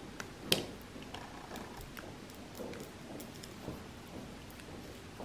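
Knitting needles clicking softly and irregularly while stitches are purled in chunky yarn; the clearest click comes about half a second in.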